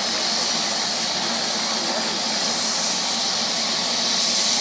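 Medical helicopter's turbine engine running on the ground after landing: a steady rush with a thin, high whine, swelling slightly twice in the second half.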